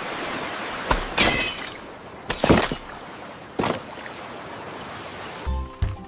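Ocean surf washing in a steady hiss, broken by four sharp clattering crashes about one, one and a half, two and a half and three and a half seconds in, one of them with a short ringing. A low rumble comes in near the end.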